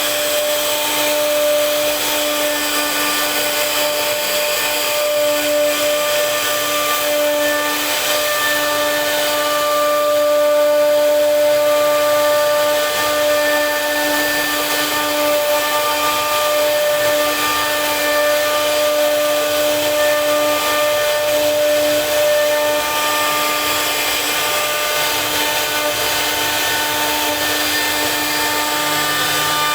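CNC router spindle running steadily with a constant whine while the bit carves wood, with cutting noise underneath.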